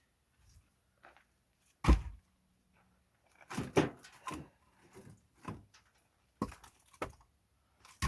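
Split pine firewood logs being set down and stacked: one sharp heavy thunk about two seconds in, then a run of irregular wooden knocks.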